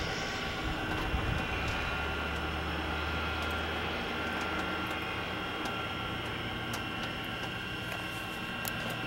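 North American P-51D Mustang's Packard Merlin V-12 engine running steadily: a low drone with several steady whining tones above it.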